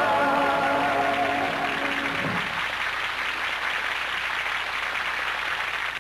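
The song's last held note with orchestral backing dies away about two seconds in, overlapped by audience applause that carries on as an even clapping.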